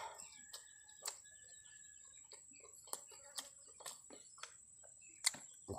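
Eating sounds: a man chewing a mouthful of grilled catfish and rice, with scattered soft mouth clicks and smacks. A steady high-pitched whine runs underneath.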